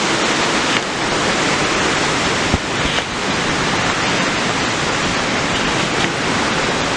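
Hurricane Harvey's heavy rain and wind: a steady, loud rush, with a brief knock about two and a half seconds in.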